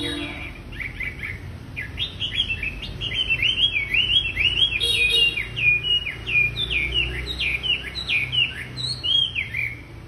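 Caged wambi songbird singing a rapid, continuous run of chirping notes, each sliding down in pitch, several a second, loudest from about two seconds in and stopping just before the end.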